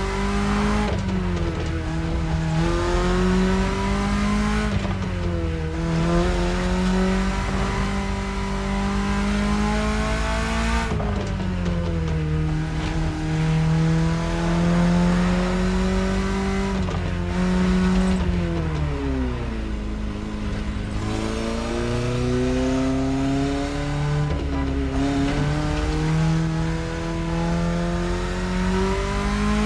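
BMW E30 engine under way, its revs climbing and falling again and again through the drive. The pitch drops quickly several times, at about 1, 5, 11, 19 and 24 seconds in.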